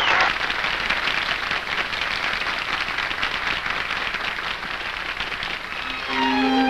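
Audience applause: many hands clapping in a dense patter that slowly thins out. An orchestra with strings starts playing near the end.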